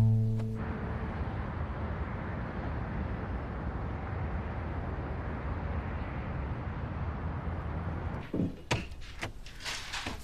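Steady hum of city traffic, with the last chord of background music dying away at the very start. Near the end come a few sharp clicks and knocks of a front door being opened.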